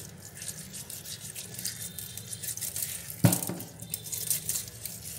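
Hands rubbing salt into raw chicken wings over a stainless steel sink, making an uneven wet scrubbing. One sharp knock comes about three seconds in.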